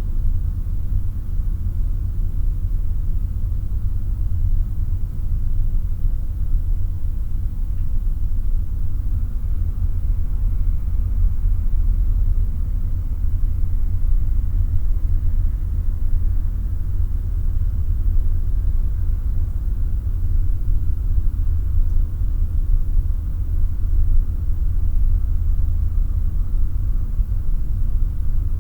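Room atmosphere ambience: a steady low rumble with no distinct events, and a faint steady hum above it.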